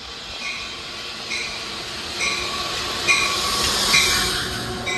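An Amtrak Northeast Regional train, led by a converted Metroliner cab car, pulls into the station and rolls along the platform, its wheels and running noise growing louder as it passes close by. A short high tap repeats about once a second over the rushing.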